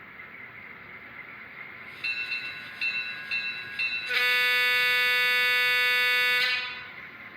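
Model locomotive sound decoder playing through a small speaker: four short ringing tones about half a second apart, then one long steady horn blast lasting about two and a half seconds, over a faint hiss.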